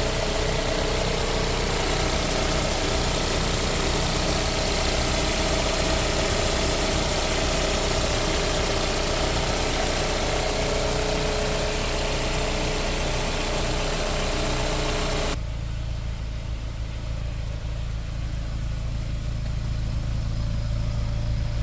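1990 Toyota Sera's 1.5-litre four-cylinder engine idling steadily while it warms up, running on a newly fitted custom idle control valve. About three-quarters of the way through the sound changes abruptly to a duller, lower hum with the hiss gone.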